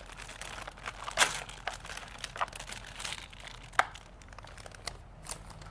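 Clear plastic packaging bag crinkling as it is handled, with a few sharp clicks; the crinkling dies down near the end.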